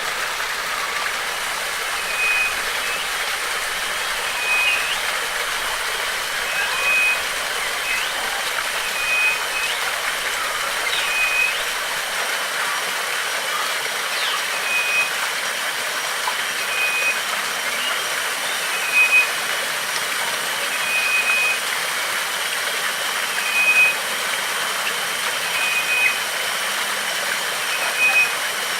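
Waterfall water rushing steadily, with a short high call repeated about every two seconds and a thin, steady high whine above it.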